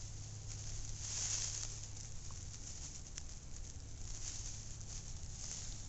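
Straw bedding rustling in a few soft, hissy swells as a small dog shifts and sniffs about in it.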